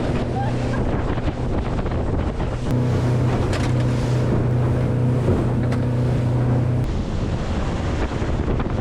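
A fishing charter boat's engine running steadily under way, with wind buffeting the microphone and water rushing past the hull. The engine hum is strongest in the middle and drops away about seven seconds in.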